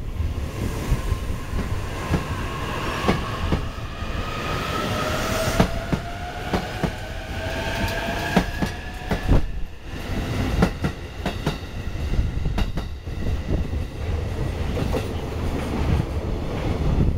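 Container wagons of a JR Freight train rolling past at close range. A continuous rumble is punctuated by the clack of wheels over rail joints. Drawn-out high wheel squeal rises slowly in pitch through the first half.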